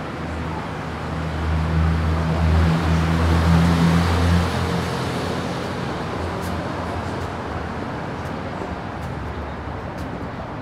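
Street traffic: a vehicle passes with a low engine hum, loudest about two to four seconds in, then fades into steady background traffic noise.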